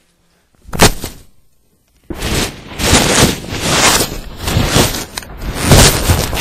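A single knock about a second in, then from about two seconds in a loud, continuous crackling and scraping of loose packaging foam rubbing over the camera's microphone as it is buried, rising and falling in level.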